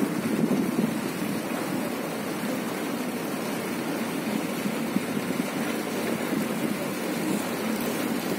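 Steady low drone of a houseboat under way: its engine running evenly, with water rushing along the hull.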